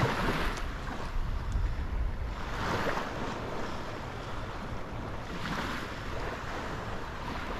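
Small surf washing in on a sandy beach, swelling three times about two and a half seconds apart, with wind rumbling on the microphone.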